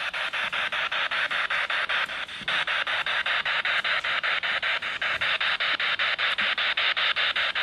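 Spirit box sweeping through radio stations: hissing static chopped into rapid even pulses, about six a second, with a brief drop a little over two seconds in.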